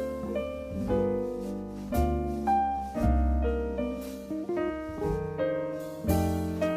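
Background piano music: chords and melody notes struck about once a second.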